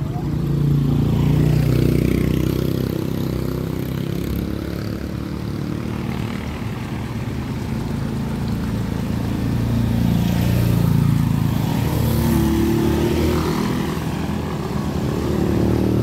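Small motorcycles and motor scooters riding past, their engines swelling and fading as each one passes.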